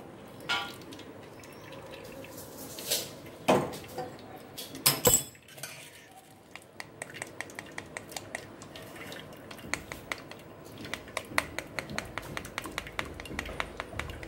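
Straining jaggery syrup: a few clinks and knocks of a steel pan and spoon against a steel bowl, then a steel spoon scraping and stirring inside a plastic tea strainer, a quick run of small clicks from about six seconds in.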